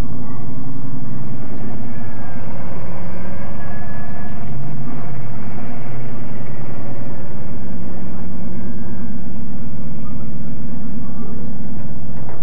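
Custom mini truck's engine running steadily, with a brief change in pitch about five seconds in.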